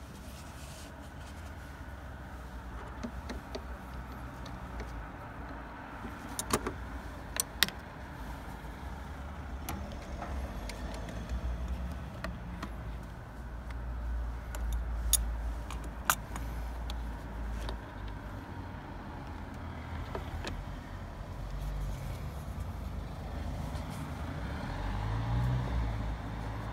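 A low motor-vehicle rumble that swells and fades twice, with a few sharp clicks and taps from tools and plastic parts being handled in the engine bay.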